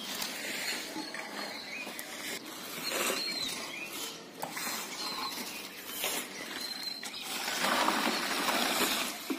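Long-handled grass brooms sweeping and scraping over dirt and litter along a drain, uneven scratchy swishes that grow louder and denser near the end.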